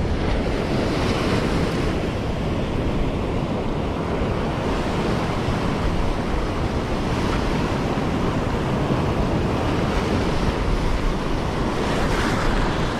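Ocean surf breaking and washing up the shallows in a steady rush, with wind buffeting the microphone.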